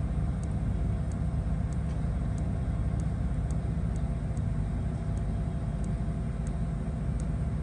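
Steady low drone of running machinery with a hum of several steady tones, and faint light ticks about every half second.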